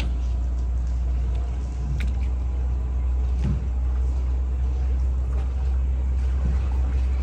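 Steady low rumble of a gondola boat under way on the river, unchanging in pitch and level.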